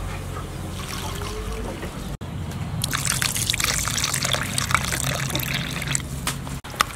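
Fish paste water poured into a bowl of flaked fish and crushed peanuts, trickling and splashing for about three seconds from roughly three seconds in.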